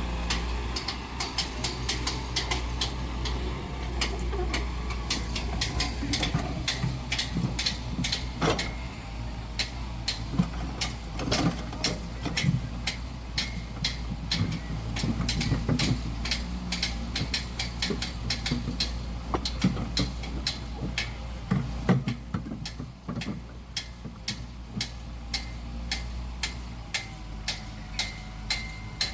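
Excavator and dump truck working with sewer pipes: a steady low hum with frequent sharp clicks and knocks, a few each second.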